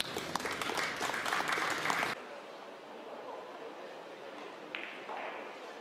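Audience applauding with many sharp claps, cut off suddenly about two seconds in, then quiet room tone with one faint click.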